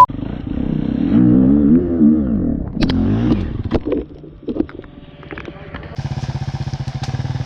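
Dirt bike engine revving up and down, with a few sharp clicks in the middle, then running steadily at low revs from about six seconds in.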